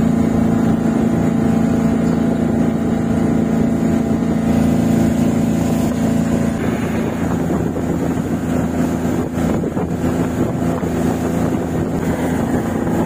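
A motorboat engine running steadily with a strong low drone. For several seconds in the middle the sound turns rougher and less even, then steadies again near the end.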